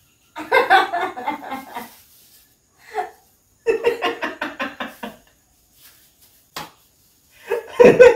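A woman laughing in several bursts, the loudest near the end.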